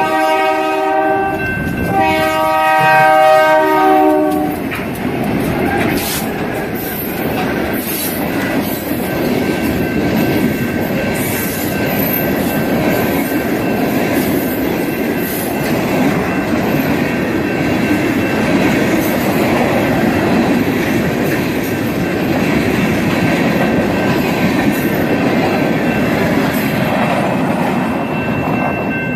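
Freight train's diesel locomotive horn sounding two blasts, a short one and then a longer one, followed by the train rolling past with a steady rumble and clattering wheels, a faint steady high squeal and the odd sharp clank.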